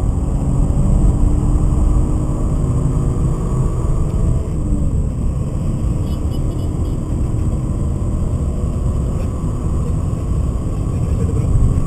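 Cabin sound of a BMW 528i driven hard: its 2.8-litre M52B28 straight-six engine running under load beneath a steady low rumble of road and wind noise.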